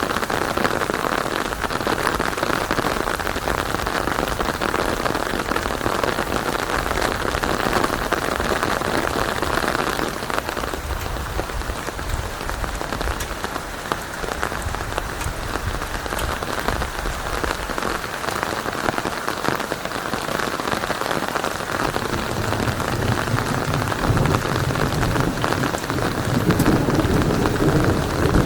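Steady rain falling in a thunderstorm, with low rumbles of thunder: one about a third of the way in, and another building near the end.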